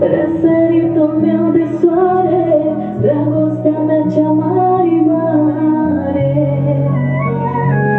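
Music: a woman singing a melody into a microphone over a backing track, with held bass notes that change every few seconds.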